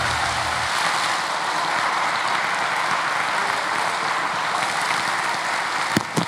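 Audience applauding steadily after a sung aria, the last of the accompaniment dying away in the first second. Near the end a few sharp single claps stand out.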